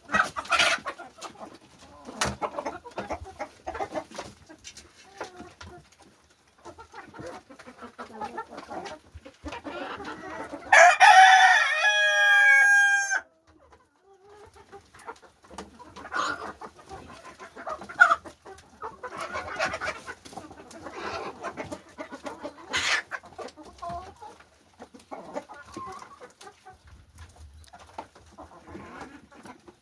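Chickens clucking, with short scattered clicks, and a rooster crowing once about eleven seconds in, a long crow that is the loudest sound and trails off in falling notes.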